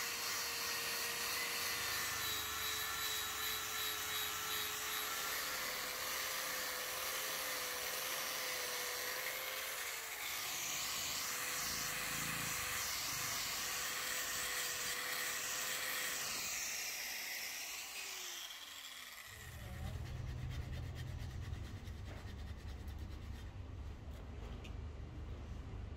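Electric angle grinder running an abrasive disc over a steel axe head: a steady motor whine with a rough hiss of grinding, its pitch stepping down a little now and then. Near the end the whine slides down as the grinder winds down, and a low rumble follows for the last few seconds.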